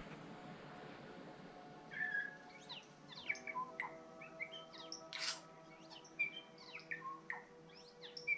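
Forest birds chirping and whistling, many short quick calls starting about two seconds in. Soft sustained music chords come in underneath about a second later.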